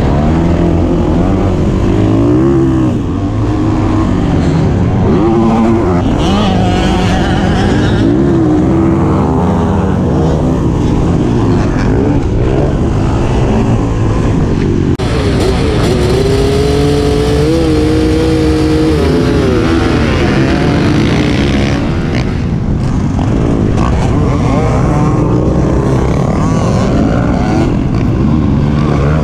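Dirt bike engine revving up and down continuously while riding a supercross track, its pitch rising and falling with the throttle. About halfway through the sound changes abruptly to a different ride, with more hiss over the engine.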